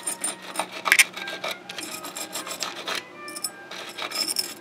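Wire brush scrubbing the gummed-up threads of the master cylinder mounting studs in quick, uneven scratchy strokes, the loudest about a second in.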